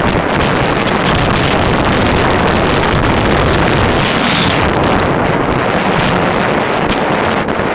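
Wind buffeting the microphone of a helmet-mounted camera on a moving mountain bike, a loud steady rush, with the knobby tyres crunching and rattling over loose gravel.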